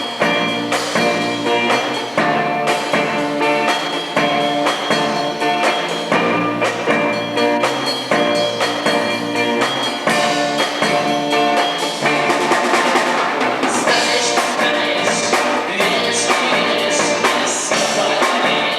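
A band playing live: a drum kit keeps a steady beat under held chords, and cymbals grow louder about three-quarters of the way through.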